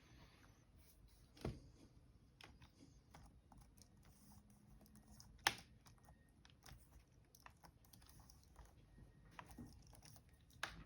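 Quiet, irregular plastic clicks and taps from hands working on a Dell Latitude E7440 laptop, with three sharper knocks: about a second and a half in, in the middle, and near the end.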